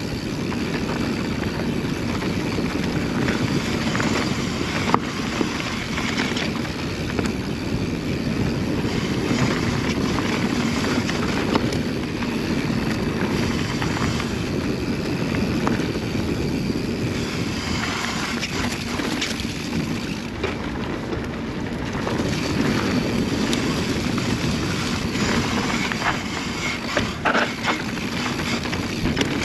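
Wind rushing over the helmet or chest camera's microphone and tyres rolling on a dirt trail as a mountain bike descends at speed. A few sharp knocks come as the bike rattles over bumps.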